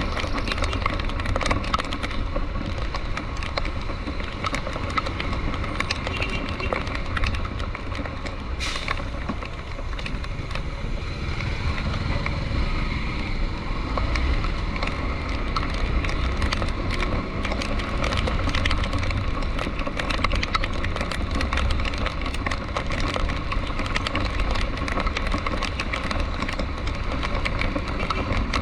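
A vehicle driving through rain: a steady low road and engine rumble with a constant fine crackle of raindrops.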